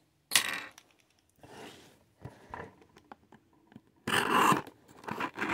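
Cardboard package handled on a table, then a pen tip dragged along the packing-tape seam from about four seconds in, scraping and tearing the tape open in loud rasping strokes.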